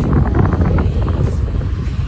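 Wind buffeting the microphone: a loud, steady low rumble, with a few short knocks or rustles in the first second.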